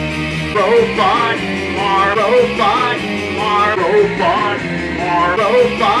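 Live rock music: electric guitar playing chords, with a wavering melodic line over it.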